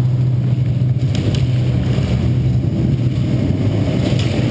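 Steady low hum with a few faint, sharp clicks about a second in and again near the end.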